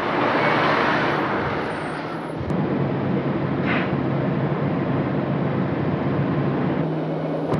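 Trolleybus noise. A broad rushing sound fills the first two seconds, then at about two and a half seconds it gives way to the steady low hum of the trolleybus running.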